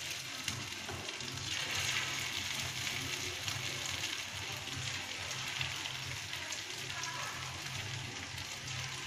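Noodle pakora balls deep-frying in hot oil: a steady bubbling sizzle that grows louder about a second and a half in, as more batter balls go into the pan.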